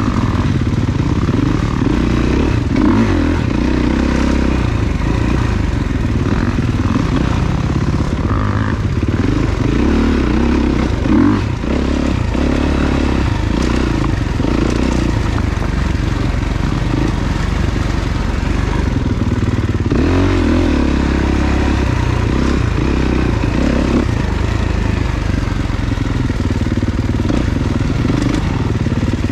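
Four-stroke enduro dirt bike engine revving up and down continuously as it is ridden over trail terrain.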